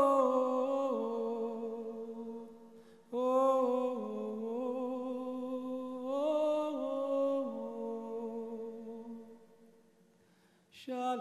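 A solo voice singing long, wordless held notes on "oh", with no instruments heard, in two phrases: the second starts about three seconds in and fades out near the end.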